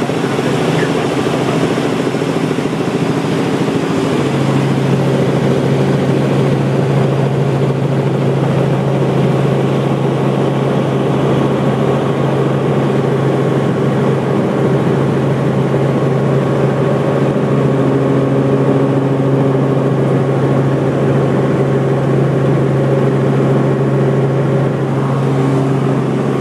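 Steady engine and rotor drone heard inside a light helicopter's cabin in flight. A low hum runs under it and grows stronger about four seconds in.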